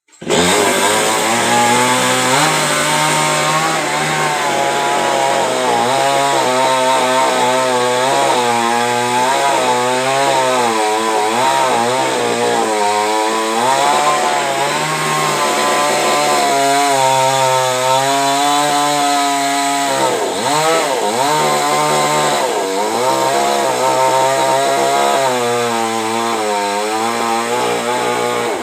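Chainsaw cutting a coconut palm trunk, its engine pitch rising and falling continually as it bogs and revs in the cut, with a brief easing about twenty seconds in.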